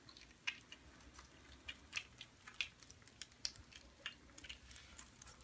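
Kittens eating dry kibble: faint, irregular crisp clicks and crunches, a few each second.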